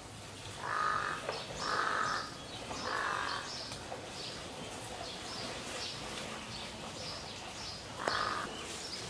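A crow cawing four times, three calls close together in the first few seconds and one more near the end, over small birds chirping throughout.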